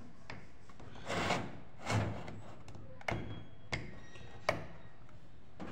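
Plastic rocker switch on a homemade switchboard being pressed: three short sharp clicks in the second half, after two duller handling knocks.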